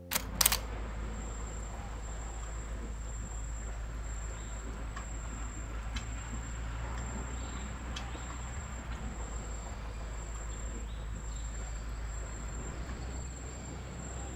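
Two sharp clicks right at the start, then a steady low rumble under a thin, steady high-pitched insect trill that runs throughout.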